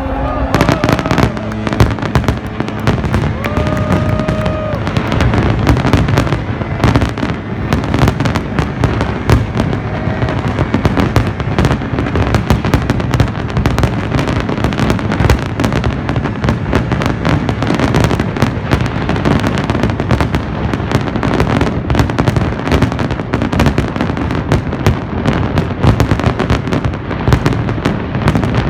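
Fireworks display: a dense, continuous barrage of bangs and crackling explosions with no let-up.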